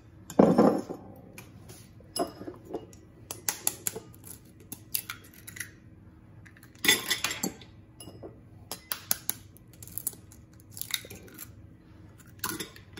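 Eggs being cracked and a metal fork clinking and scraping against a ceramic bowl while a piece of eggshell is fished out of the raw egg. Many small clicks and taps, with two louder knocks, about half a second in and about seven seconds in.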